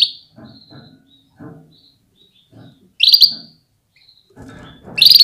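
Female canary giving three loud, short, high chirping calls, at the start, about three seconds in, and near the end, with fainter low sounds between them. This is the hen's call used to stir male canaries into breeding readiness and full song.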